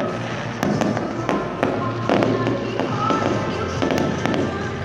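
Aerial fireworks bursting overhead: a run of bangs, about two or three big ones a second, mixed with smaller crackles, with music underneath.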